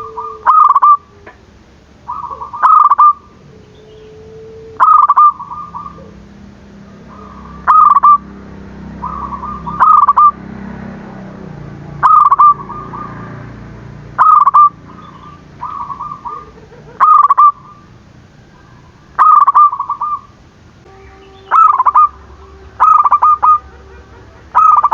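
Zebra dove (perkutut) cooing over and over, each short phrase of rolling coos ending in a few loud notes, repeated about every two seconds.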